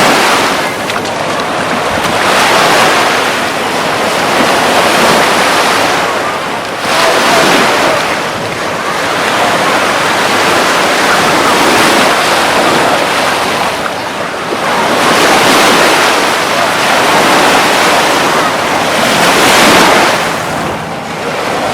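Atlantic surf breaking on the beach, a steady wash that swells with each wave every four to five seconds.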